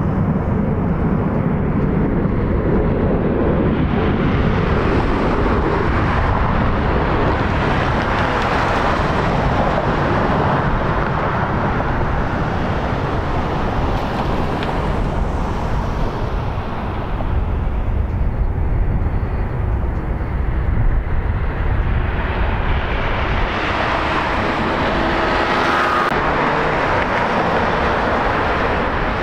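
Jet engines of a taxiing Boeing 777 running at low thrust: a steady rumble, with a faint engine whine showing about three-quarters of the way through.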